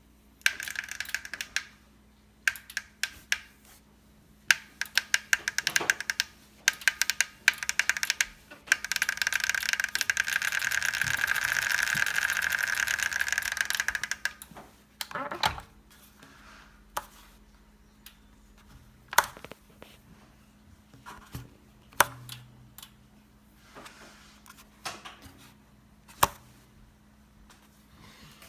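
Tacx Vortex Smart wheel-on trainer's roller clicking under pedalling pressure: rapid clicks in short bursts, a long dense run of fast clicking in the middle, then scattered single clicks. The clicking is an abnormal noise that appears under load.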